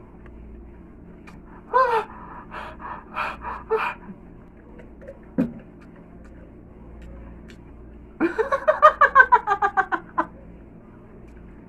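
A man gasping and crying out from the burn of spicy fire noodles. A short cry near two seconds in is followed by quick gasps, and then, about eight seconds in, by a rapid stuttering wail that falls in pitch over about two seconds.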